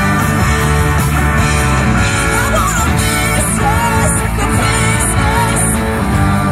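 Live rock band playing through PA speakers: a woman singing lead over electric guitars and a drum kit.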